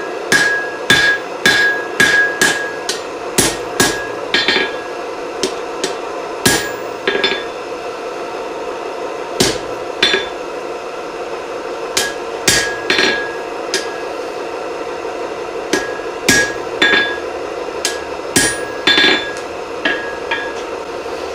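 Rounding hammer blows on hot steel over an anvil, many strikes leaving a short high ring. The blows come in a quick run at first, stop for a couple of seconds, then return in scattered groups, over a steady hum.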